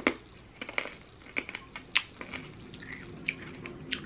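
Tyrkisk Peber Hot and Sour hard candy being crunched between the teeth: irregular crisp cracks as the hard shell breaks. The loudest cracks come right at the start and about two seconds in.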